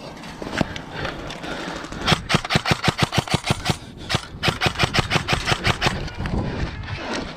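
Airsoft rifle firing on full auto: two bursts of about two seconds each, rapid even clicks at roughly eight to ten shots a second, with a short break between them.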